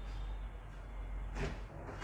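Refrigerator door being handled, with one brief knock about one and a half seconds in, over a low steady hum.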